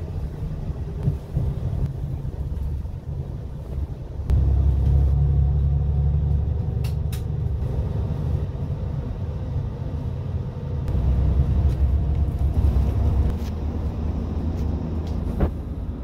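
Bus engine running with a heavy, low rumble heard from inside the cabin, growing louder about four seconds in and again later as the bus gets under way, with a couple of sharp clicks near the middle.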